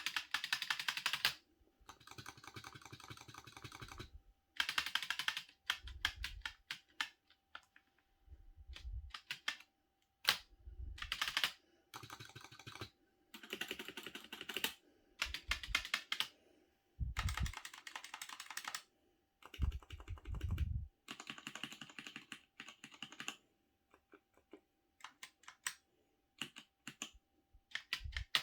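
Keys on linear red-switch gaming keyboards (Razer optical and Cherry MX Red) pressed repeatedly, in short quick runs of clacking strokes with brief pauses between the runs.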